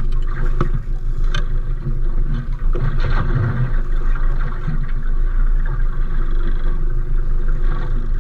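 Small fishing boat's engine running steadily with a low rumble, with a few brief knocks over it.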